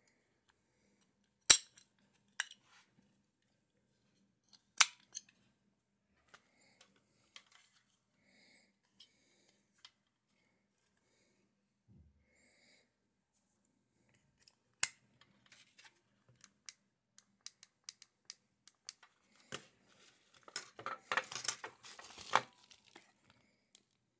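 Sharp plastic clicks and snaps from handling a small battery-powered LED motion-sensor lamp: its battery cover and AAA batteries, with a few loud single clicks spaced seconds apart and a quick run of small ticks. Near the end, a burst of crinkling from a crumpled plastic mailing bag.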